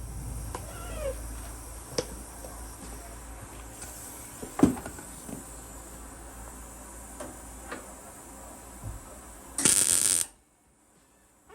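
Workshop handling noises: scattered knocks and clicks, the loudest about halfway, over a low rumble, then a short loud burst of hiss near the end that cuts off suddenly.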